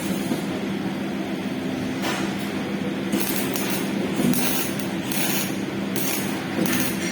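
Electric arc welding: a continuous crackling sizzle from the arc that swells and fades every second or so, over the steady hum of the welding machine.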